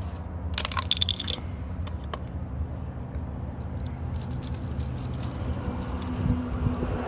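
Plastic water bottle crinkling and clicking in the hands about a second in, then Red Bull poured from an aluminium can into the bottle, a faint trickle that grows near the end. A steady low hum runs underneath.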